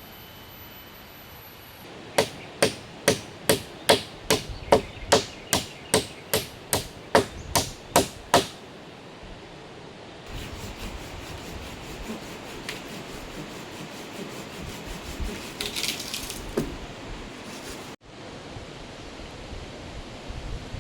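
A hammer driving a nail into wood, about sixteen quick, even strikes at roughly two and a half a second. From about ten seconds in, softer irregular scraping and knocking on the timber follows.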